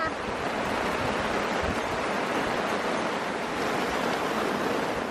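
Heavy rain pouring down: a steady, even hiss.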